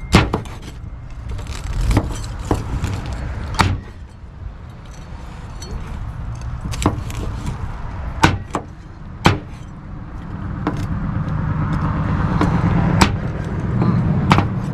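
Scattered sharp clicks and knocks, about a dozen, over a steady low rumble. A denser murmur builds in the last few seconds.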